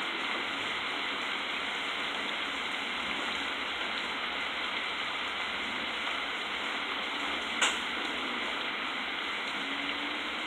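Heavy storm rain falling steadily, an even hiss, with one sharp tap about three-quarters of the way through.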